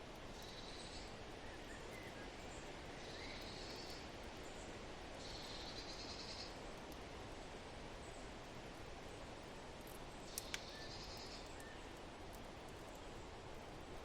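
Forest ambience: a steady hiss of wind with a high, buzzy trill repeating four times in bursts of about a second. Two sharp pops come about ten seconds in.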